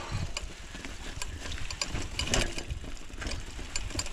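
Mountain bike rolling over a dirt trail: a low rumble of tyres on the earth with many irregular small clicks and rattles from the bike.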